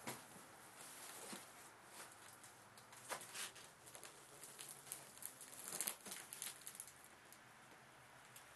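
Faint rustling and a few soft knocks of a cardboard box being handled and settled onto a bathroom scale, with a small cluster of crinkling about two-thirds of the way through.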